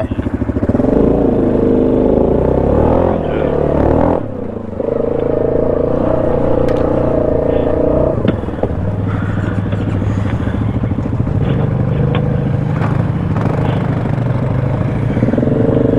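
ATV engine running under load, its pitch rising and falling with the throttle and dipping briefly about four seconds in. There is a single sharp knock about eight seconds in.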